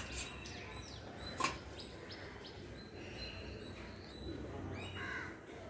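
Faint animal calls outdoors, short chirps and thin tones on and off, with one sharp clink of a steel spoon or tumbler about a second and a half in.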